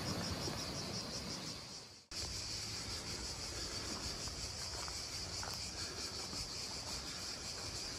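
Cicadas buzzing in pine woods, a steady high shrill over a low rumble. The sound cuts out for an instant about two seconds in.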